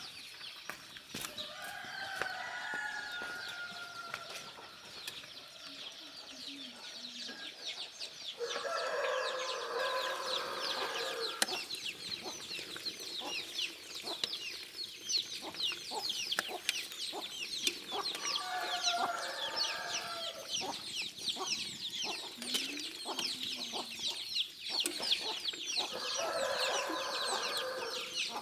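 Roosters crowing about four times, each crow two to three seconds long, over a constant chatter of quick, high chirps.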